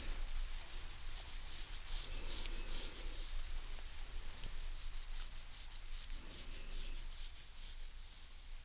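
Fingernails scratching in quick, repeated strokes, ASMR-style head and back scratching. The scratching comes in two runs, with a short pause between them, and eases off near the end.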